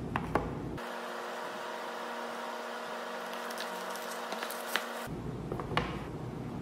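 A cardboard product box and its plastic wrap being handled on a tabletop: a few sharp light ticks and taps, with a seal peeled off the box, over a steady background hum.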